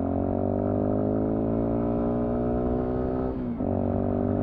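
Sinnis Terrain 125's single-cylinder 125cc four-stroke engine running under way through its aftermarket Toro exhaust can, which makes quite a bit of noise out the rear. The engine note climbs slowly, breaks briefly about three and a half seconds in at a gear change, then holds steady.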